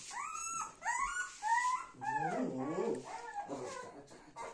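Newborn golden retriever puppy crying: a quick run of short, high-pitched whimpers that rise and fall, then a lower, wavering cry about two seconds in, trailing off into softer sounds.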